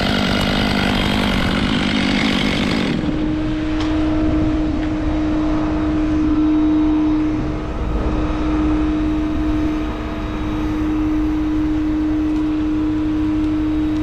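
Petrol chainsaw at full throttle cutting through the poplar stem, cutting off abruptly about three seconds in. After that, a steady mechanical drone with a constant whine runs on.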